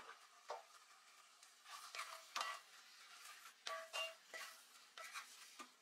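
Wooden spatula stirring and tossing spaghetti in an enamelled pan: a string of faint, light knocks and scrapes against the pan.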